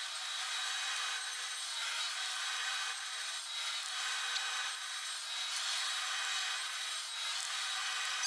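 Circular saw with a panel-sizing blade cutting decor-coated board into strips, a steady sawing noise that does not let up.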